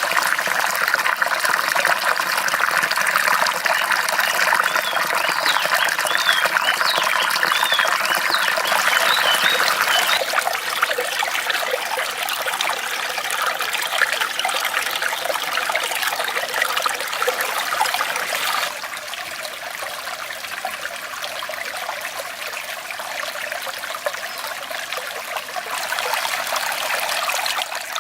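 River water flowing in a steady rush. It is louder for the first ten seconds, steps down in level about ten seconds in and again a little past the middle, then rises again near the end.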